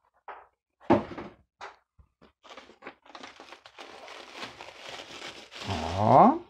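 Pink antistatic bubble wrap being handled and pulled open: scattered crackles, then a continuous crinkling rustle. Near the end comes a short rising squeal, the loudest sound.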